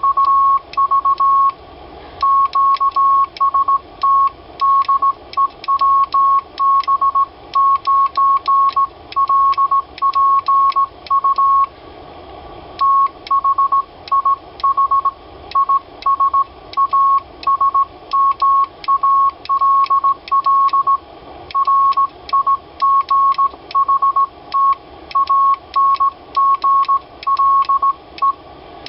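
Morse code sent on a small right-angle semi-automatic 'bug' key with brass works and magnets in place of springs: a steady high beep keyed on and off in dots and dashes, over the light clicking of the key's lever and contacts. The sending breaks off briefly about twelve seconds in.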